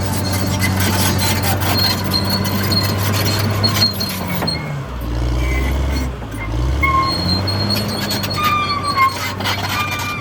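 Cat D6R XL bulldozer's diesel engine running under load, its pitch sagging for about two seconds midway before recovering, with short high squeals from the steel track undercarriage.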